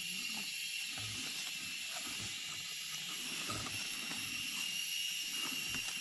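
Steady high-pitched drone of insects in the forest, with a few soft low rustles or footfalls in the leaf litter underneath.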